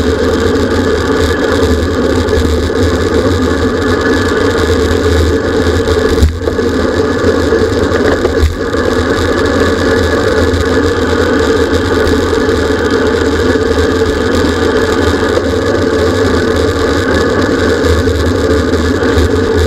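Steady, loud rush of wind on the microphone of a camera riding along on a racing bicycle, with road and tyre noise underneath.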